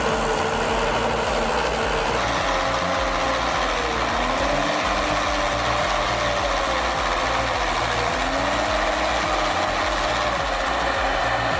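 Diesel engine of a Valmet 840.3 forwarder working hard while stuck in deep ruts, its pitch rising and falling as it is revved up and eased off, twice rising again around the middle and later on.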